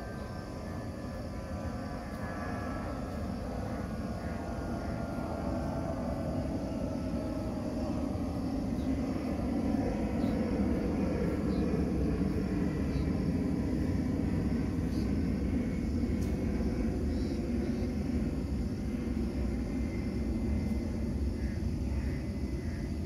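Distant engine noise: a whine of several tones falling slowly in pitch over the first several seconds, then a low rumble that grows louder and holds.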